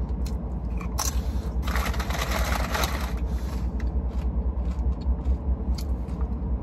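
Crunching and rustling from someone eating tortilla chips, loudest about two to three seconds in, with short crunches after. Under it runs the steady low rumble of a Rolls-Royce cabin.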